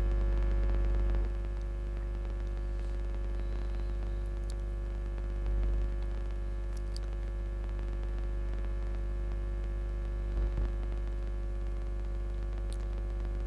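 Steady electrical mains hum with a buzz of evenly spaced overtones, running under the recording, with a few faint clicks.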